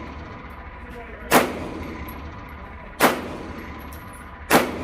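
Three pistol shots from a North American Arms Guardian .380, about a second and a half apart, each with a short ring-out, over a steady low hum.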